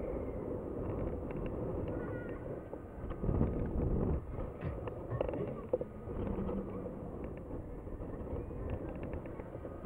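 Onboard sound of the Jekyll & Hyde fairground thrill ride in motion: wind rushing over the ride-mounted microphone with the ride's mechanical rumble and a steady hum underneath, swelling louder about three to four seconds in.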